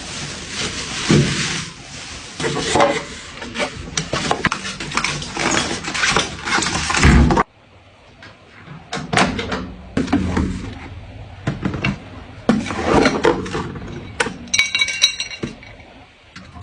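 Handling noises from unboxing and setting up a new microwave: irregular knocks, clunks and rustling, with the microwave door opening and shutting.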